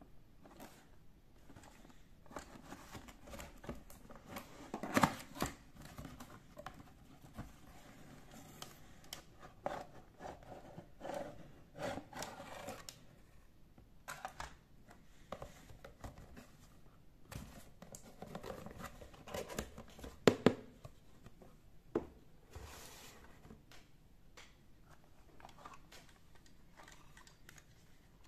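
A cardboard toy box being opened and a hard plastic doll unpacked and handled: scattered rustling, scraping and clicking, with a few sharp knocks, the loudest about five seconds in and about twenty seconds in.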